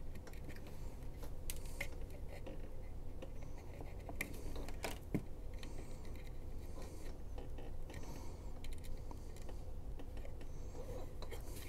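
Light, irregular clicks and snips of a hand wire stripper working the ends of a thin four-strand RGB wire, stripping the insulation off the 26-gauge conductors, with one sharper click about five seconds in.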